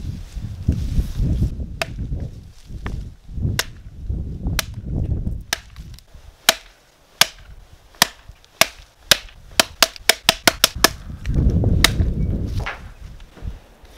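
Camp hatchet's steel head chopping a stick against a wooden stump: a string of sharp chops, about a second apart at first, then quickening to several a second. Gusts of wind rumble on the microphone between the chops and swell loudest near the end.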